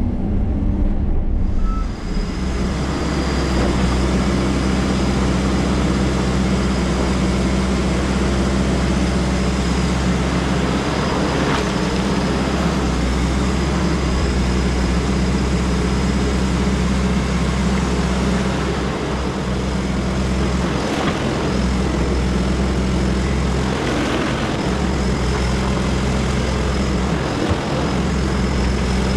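Diesel engine of an XCMG 180 crawler excavator running steadily at working speed, with a thin steady high-pitched tone above the engine note.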